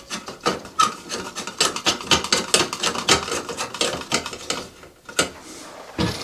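A light bulb being screwed into a bathroom exhaust fan's light socket: a quick run of rasping, scraping strokes, several a second, as it is twisted in by hand. It stops about four and a half seconds in.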